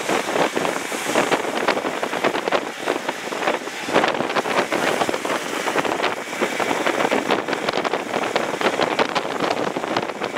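A moving car heard from inside the cabin: steady road and wind noise with a dense crackle on the microphone throughout.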